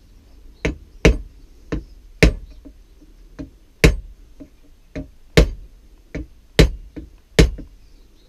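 Hammer blows on the end of a screwdriver used as a drift, about ten sharp strikes with lighter taps between, irregularly spaced. The blows are driving a steel wedge into the ash haft of a rounding hammer head to lock the head on.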